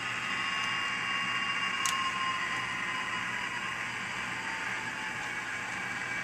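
Model railroad diesel switcher locomotive running along the track with a steady, high whine, a single sharp click about two seconds in.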